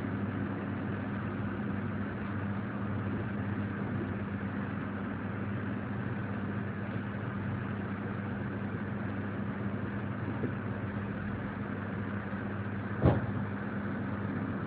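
Steady running noise inside a moving passenger train, with a low, even hum underneath. A single sharp knock about thirteen seconds in.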